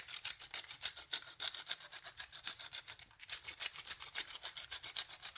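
Pepper mill grinding black pepper: a rapid run of dry grinding clicks that pauses briefly about three seconds in and then starts again.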